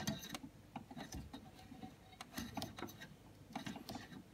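Faint, irregular small clicks and rubbing of plastic and tubing as a Keurig check valve is worked back and forth to push it into its snug-fitting housing.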